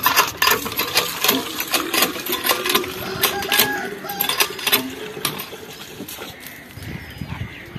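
Metal pots and utensils clinking and rattling in quick, irregular clicks as they are handled. The clicks thin out over the last couple of seconds.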